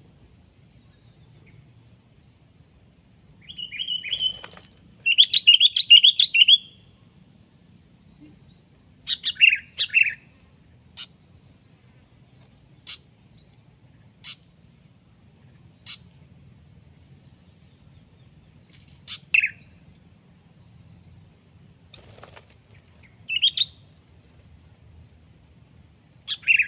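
Sooty-headed bulbul (kutilang) calling in separate bursts. A loud run of quick chattering notes comes about five seconds in and a shorter phrase around ten seconds. After that there are single sharp notes every second or two and brief calls near the end.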